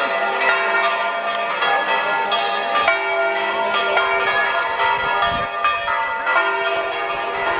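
Bells ringing in a continuous peal: several pitches ring over one another, with fresh strokes coming about every second.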